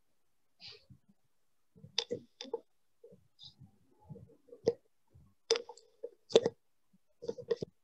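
Irregular clicks and light knocks of someone handling a computer and desk close to the microphone, a dozen or so scattered strokes with short gaps of silence between them, the loudest about two, four and a half, five and a half and six and a half seconds in.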